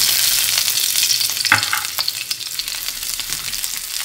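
Sliced onion sizzling in hot cooking oil just after being dropped into the pan, as the sauté begins, with a wooden spatula stirring it. The sizzle is loudest at first and eases gradually, with a couple of knocks about one and a half to two seconds in.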